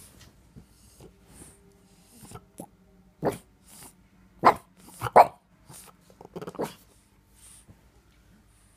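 French bulldog giving a handful of short, sharp barks, the loudest two about half a second apart, demanding to be let up onto the sofa.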